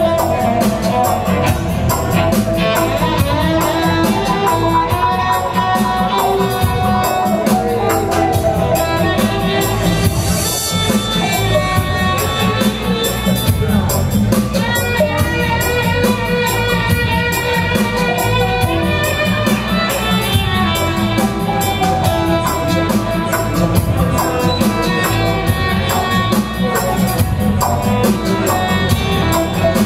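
Live electronic music played on MIDI keyboards and laptops together with a cello: a steady repeating low beat under sustained melodic lines.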